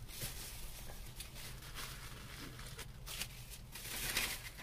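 Faint rustling and handling noises, a few soft scattered bursts over a low steady hum inside a car cabin.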